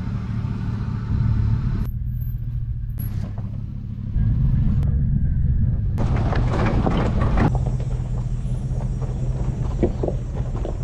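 Pickup truck engine running low and steady while the truck drives slowly along a rough dirt trail. The sound shifts abruptly several times, and there is a louder stretch of rattling noise about six seconds in and a few short knocks near the end.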